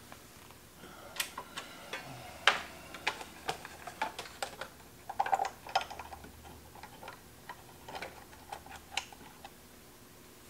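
Irregular light clicks and taps of hands and a tool working on the parts inside an opened piece of electronic test equipment. The sharpest come about two and a half seconds in and in a quick cluster around five seconds in, and they stop shortly before the end.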